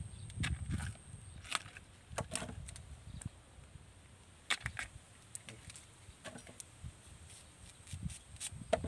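A large knife cutting and paring a fresh bamboo shoot: a series of short, crisp cuts at irregular intervals.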